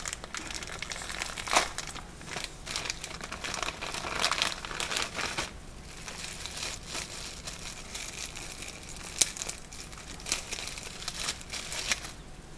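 Clear plastic bag crinkling and crackling as it is handled and pulled open by hand, with a few sharper snaps of the plastic, busiest in the first half.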